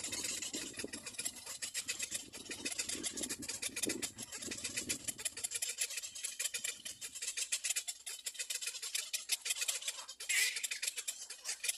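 Birds calling at a nest: a fast, high, rasping chatter, with louder high-pitched calls starting near the end.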